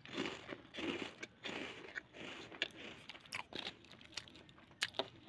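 A person biting into and chewing a Britannia Marie Gold biscuit: crunching in several short bursts over the first few seconds, then thinning to scattered small crackles.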